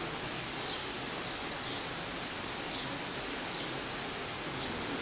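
Steady rushing background noise of an animal house, with faint, short, high bird chirps about once a second.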